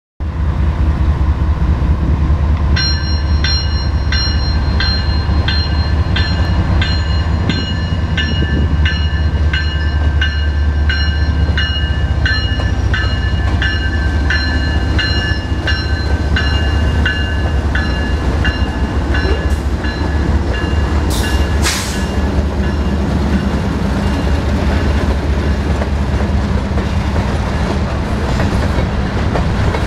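A BNSF freight train approaching and passing, its two diesel locomotives running with a deep steady drone, followed by empty covered hopper cars rolling by. A bell rings about twice a second from a few seconds in until about two-thirds of the way through.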